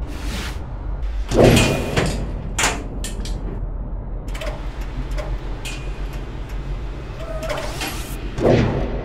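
Machine-world sound effects: a steady low mechanical drone with sudden sliding and clanking mechanical sounds over it. The loudest come about a second and a half in and again near the end, with a run of quick clicks in between.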